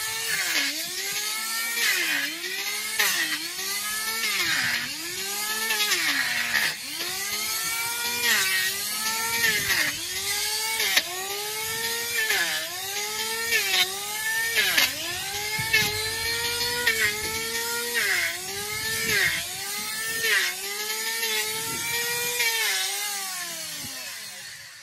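Electric chainsaw cutting through a donkey's hoof horn. The motor's whine drops in pitch each time the chain bites and picks up again between cuts, about once a second, then winds down and stops near the end.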